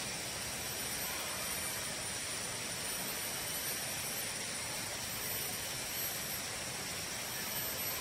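Tropical forest ambience: a steady, unbroken rushing hiss with a continuous high-pitched drone of insects above it.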